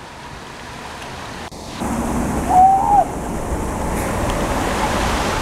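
Creek water rushing over a small rocky cascade, a steady hiss that gets louder about two seconds in. A brief wavering pitched call sounds over it about halfway through.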